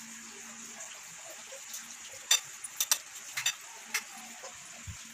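Eating utensil clinking against a plate several times in quick succession, as the sardine sisig is scooped up for tasting, over a steady background hiss.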